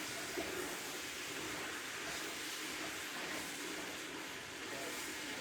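Beef chunks sizzling in a pot, a steady, even hiss.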